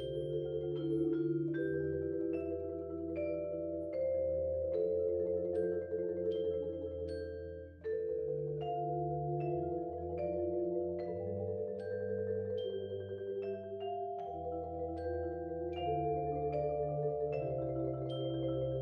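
Percussion ensemble of marimbas and a vibraphone playing together: low held chords under a bell-like melody of struck high notes, with a brief break about eight seconds in.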